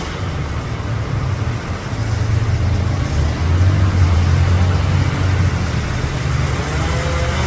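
Low, steady engine rumble of a large vehicle, swelling louder about halfway through.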